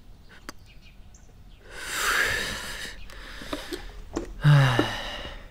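A man's long, breathy sigh about two seconds in, followed a couple of seconds later by a short vocal groan that falls in pitch.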